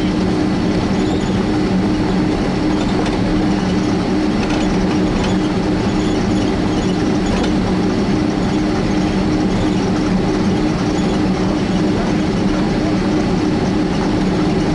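Boeing 767-300 cabin noise while taxiing: a steady jet-engine drone with a low hum and the rumble of the airliner rolling over the taxiway, with a few faint rattles.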